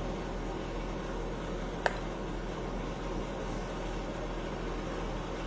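Steady background hum of the room, with one short clink about two seconds in: a metal spoon touching crockery as sauce is spooned onto the plate.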